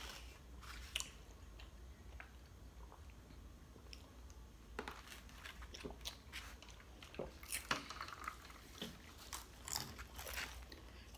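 Faint chewing and crunching of fried chicken wings: scattered short, crackly bites that come more often in the second half.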